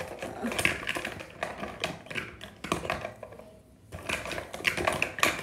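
Irregular light clicks and taps of small plastic makeup items being handled, with a short pause a little after three seconds in.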